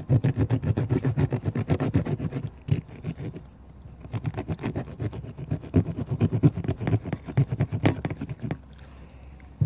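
A knife sawing back and forth along a bluegill to fillet it: rapid, short scraping strokes, with a brief lull about three seconds in and fainter strokes near the end.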